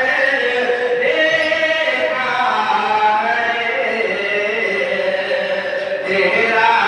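Men chanting an unaccompanied Islamic devotional recitation, led by a man singing into a microphone. It moves in long held melodic phrases, and a new phrase begins about six seconds in.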